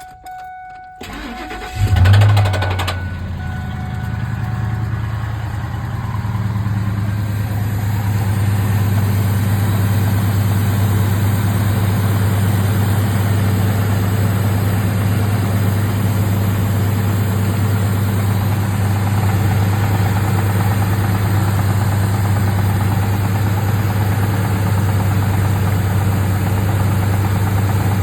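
2000 Ford F150 Triton V8 cranked on the starter, catching about two seconds in and settling into a steady idle on a cold start. The owner calls the start-up noise horrible and suspects the timing chain, a wrist pin or a rod knock, despite good oil pressure.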